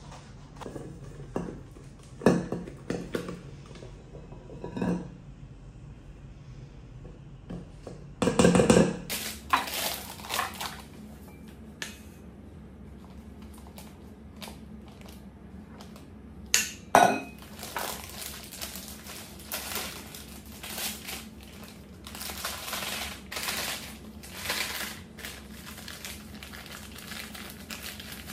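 Kitchen handling noises: a stainless steel mixing bowl knocking and scraping as chocolate filling is scooped out of it into a plastic piping bag, with plastic rustling. Two loud clanks stand out, about a third and two thirds of the way through.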